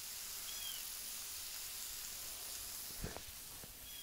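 Diced potatoes and onions sizzling steadily in bacon grease on a Blackstone flat-top griddle. A short chirp comes about half a second in and again near the end, and a couple of light knocks come about three seconds in.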